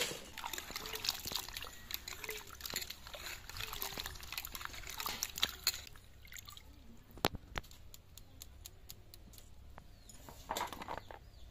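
Hands rubbing and swishing cut kakrol (spiny gourd) pieces in a pot of water: busy splashing and sloshing for the first half, then sparser drips and small splashes as pieces are lifted out of the water.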